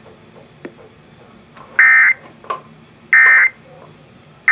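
Emergency Alert System end-of-message data bursts: short, harsh digital warbling tones, two in full about a second apart and a third starting at the end. They are the coded signal that the alert message is over.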